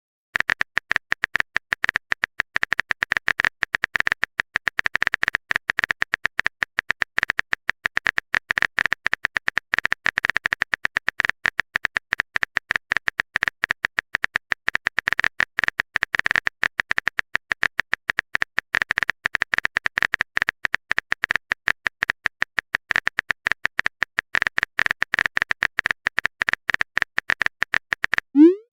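Typing sound effect: a long, rapid, even run of keyboard clicks, with a short rising swoop just before it ends.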